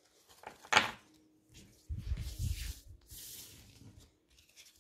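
Tarot cards being gathered up by hand off a table: a sharp card slap about three-quarters of a second in, then low knocks and bumps, and a brief sliding hiss around three seconds in.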